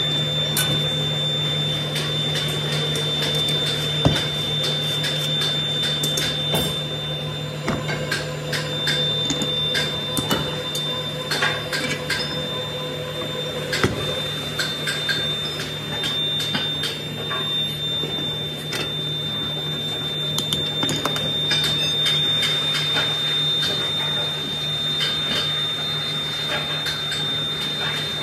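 Scattered knocks, taps and scrapes of hand work on a steel sand-molding flask and its metal patterns as foundry sand is packed in, with sharper knocks about 4 and 14 seconds in. Underneath runs a steady low machine hum with a faint high whine.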